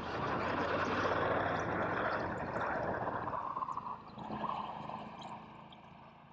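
Strong wind blowing, a steady rushing noise that eases off over the last couple of seconds.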